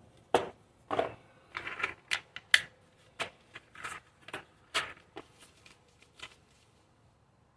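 Parts and their plastic packaging being handled and sorted from a box: an irregular run of sharp clicks, taps and crinkles that dies away near the end.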